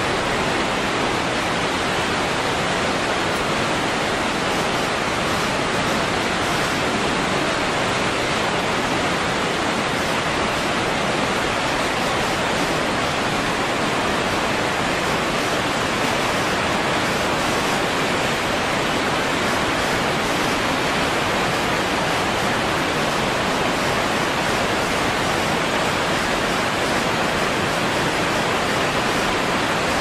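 Steady, loud rush of a waterfall close up: falling and churning white water, an even hiss across all pitches with no change in level.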